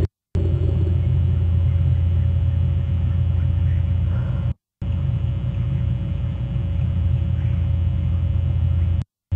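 Steady low rumble on a wildlife nest camera's outdoor microphone feed, cut three times by brief dropouts to silence.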